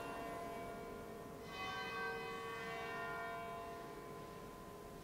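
A large bell tolling: the ringing of one stroke carries on, a second strike comes about a second and a half in, and its ringing slowly dies away.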